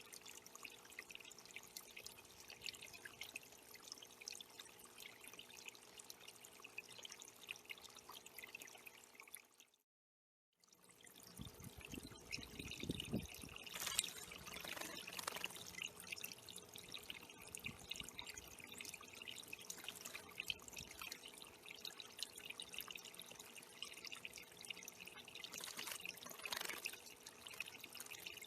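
Water trickling and splashing steadily in a small backyard bird pond, with a brief cut-out about ten seconds in and a few louder moments afterwards.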